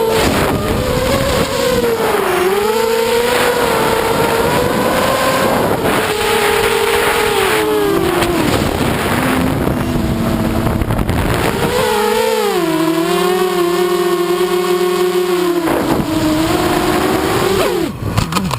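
Brushless motors of a 210-size FPV racing quadcopter (RCX 2205 2350 kV on a 4S battery) whining, the pitch rising and falling as the throttle changes, with air rushing past the onboard camera's microphone. The sound cuts off suddenly at the very end.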